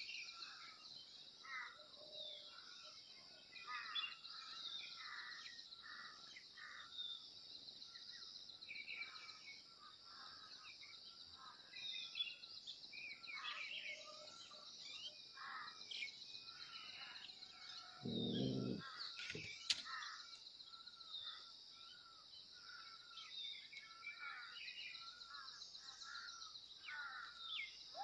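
Quiet outdoor ambience of many small birds chirping over a steady high-pitched buzz. About two-thirds of the way through, a single low-pitched call lasts about a second.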